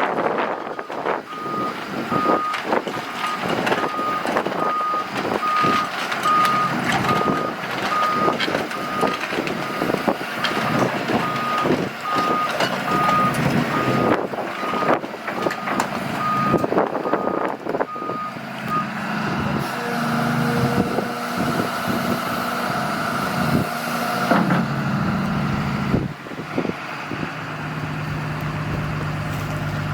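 Hyundai HX260L crawler excavator moving, its travel alarm beeping about one and a half times a second among repeated metallic clanks. The beeping stops about 19 seconds in and the diesel engine runs on steadily. Near the end it drops to a lower, even idle.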